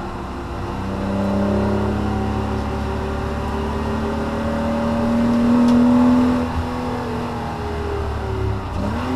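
Porsche Cayman S (987 mk2) flat-six engine heard from inside the cabin, pulling under load with its pitch rising slowly and getting louder up to about six seconds in. The revs then fall away, and near the end they sweep up quickly again.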